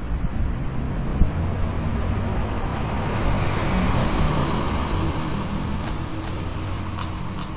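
Road traffic: a car driving past on the street, its engine and tyre noise swelling a little around the middle and easing off toward the end.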